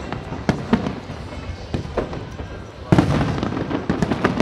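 Aerial fireworks shells bursting in a rapid series of bangs. A louder, denser volley of bangs comes about three seconds in.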